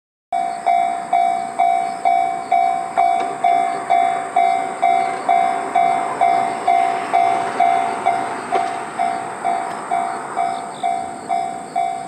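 Railway level-crossing warning bell ringing, an even clang about twice a second, signalling that a train is approaching.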